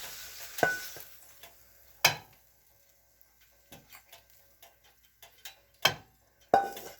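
A utensil knocking and scraping against a frying pan and a plate while stir-fried chicken is scooped out: a few sharp clinks, some with a brief ring, the loudest about two seconds in and near the end. Faint sizzling from the pan fades out in the first second or so.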